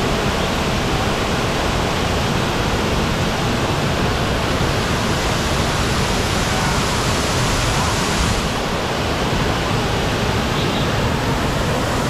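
Waterfall cascading over a rock face, heard up close as a loud, steady rush of water.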